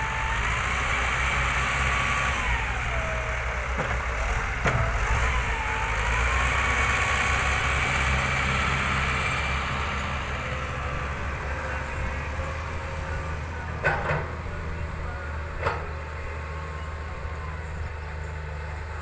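Cat 926E wheel loader's diesel engine running under load, its revs and a whine rising and falling as it works the dirt. Two sharp metal clanks come about a second and a half apart near the end.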